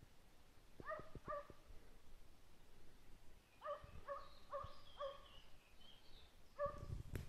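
A hunting hound baying faintly on a hare's trail, in short barks: two about a second in, a quick run of five a few seconds later, and another near the end. A sharp knock comes right at the end.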